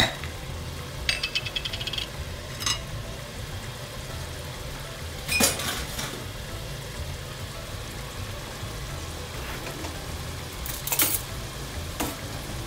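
Clinks, taps and knocks of a glass jar of tomato paste and kitchen utensils, with a quick rattling run of small ticks about a second in and louder knocks near the middle and the end. Under them a pot of onion masala simmers quietly.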